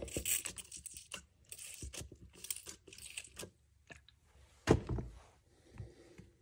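Handling noise at a metal drilling jig: rustling and crinkling for the first few seconds, then one sharp knock just before five seconds in, the loudest sound, followed by a couple of light clicks.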